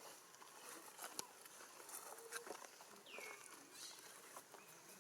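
Faint outdoor ambience of scattered soft clicks and rustles, with one short high squeak falling in pitch about three seconds in.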